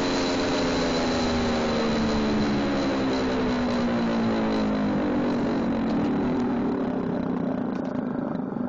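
Gas-engine-driven Federal Signal 3T22 tornado siren sounding, its wail sliding steadily lower in pitch as the chopper slows, over the noise of the engine. It grows quieter near the end. Heard at close range, right beside the chopper, it is really loud.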